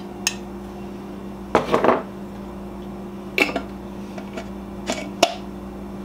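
Kitchen handling of a glass salsa jar and a metal measuring cup: a few scattered clinks and knocks, the biggest group about one and a half seconds in and others near three and a half and five seconds, over a steady low electrical hum.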